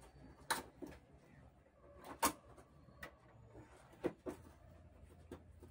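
Hands handling and pressing down the plastic diffuser sheets of an LED TV's backlight assembly as it is put back together: scattered sharp clicks and taps, about seven of them, the loudest a little past two seconds in.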